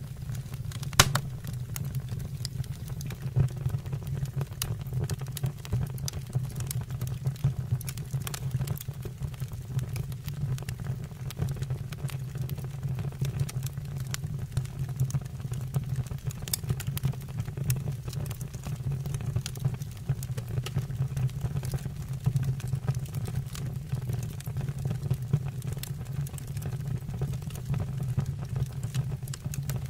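Fire burning in a fireplace, crackling with frequent sharp pops over a steady low rumble; one louder pop about a second in.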